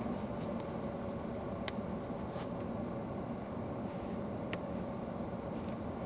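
Steady low hum inside a stationary car's cabin, with two faint short ticks, one about two seconds in and one near the end.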